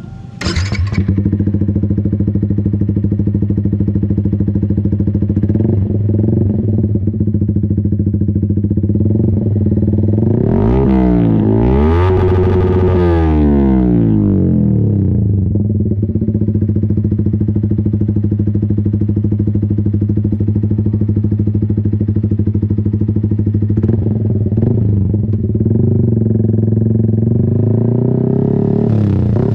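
Yamaha MT-15's single-cylinder engine through an Austin Racing aftermarket exhaust, idling steadily. About ten seconds in it is revved once, climbing and dropping back over about four seconds. A few shorter throttle blips come near the start and again in the last few seconds.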